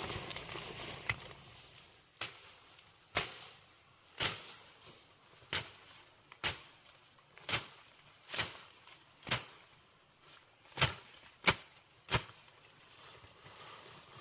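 A steady series of sharp knocks, about one a second, with two louder strikes a little after the middle.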